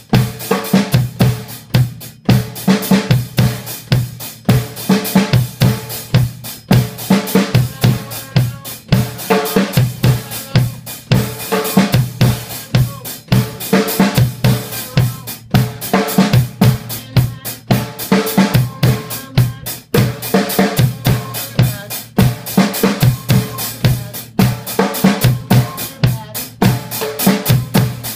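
Acoustic drum kit playing a basic rock beat: kick, snare and cymbal strokes in a steady, repeating groove.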